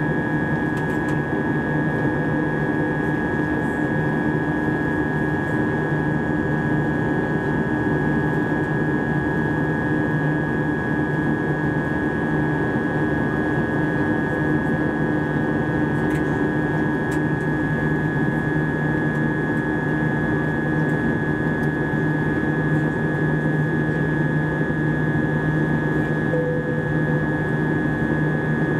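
Airbus A320-232 cabin noise in flight: a steady rush of airflow with a constant hum of steady tones from its IAE V2500 engines.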